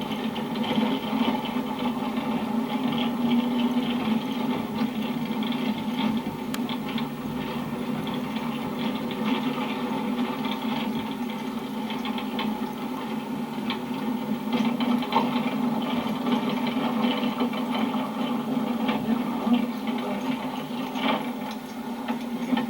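Steady engine and road noise heard inside a moving car, with a constant low drone and frequent small rattles and knocks from the cabin.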